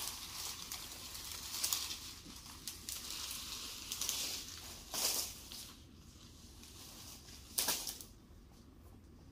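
Cut oil palm fronds rustling and brushing through grass and leaf litter as they are carried off. The rustling dies down about six seconds in, and one short, sharp crackle of leaves comes near the end.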